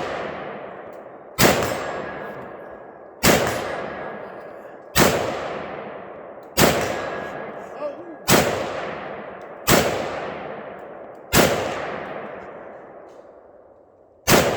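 Eight gunshots fired one at a time at a slow, steady pace, about one every second and a half, with a longer pause before the last. Each shot rings out with a long echoing tail.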